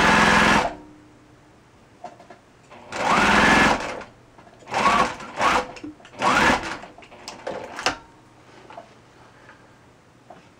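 Electric domestic sewing machine stitching a seam in short bursts: one at the start and four more between about three and seven seconds in. A few light clicks follow about eight seconds in, then it stops.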